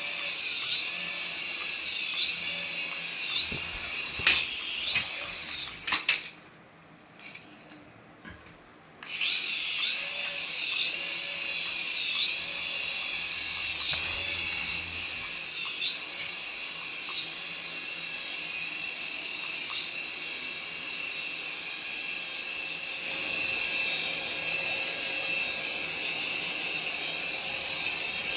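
Small electric motor of a remote-control toy whining at high pitch, its pitch swelling up and falling back again and again. It cuts out for about three seconds a quarter of the way in, then runs on.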